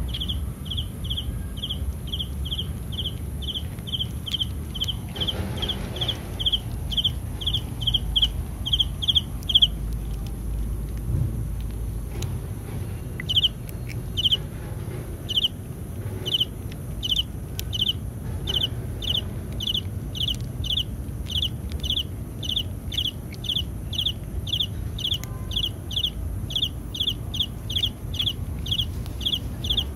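A regular run of short, high chirps, about two to three a second. It breaks off about ten seconds in, then starts again a few seconds later and keeps the same pace. A low rumble sits underneath.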